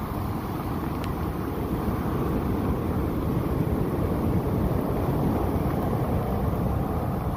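Heavy surf from a storm-roughened sea breaking and washing up a sandy beach, with strong wind buffeting the microphone as a steady low rumble.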